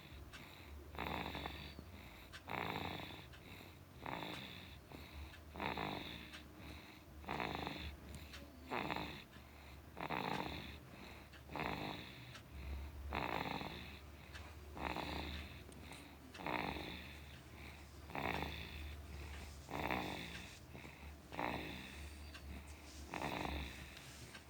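A sleeping baby snoring, a noisy breath about every second and a half in an even rhythm.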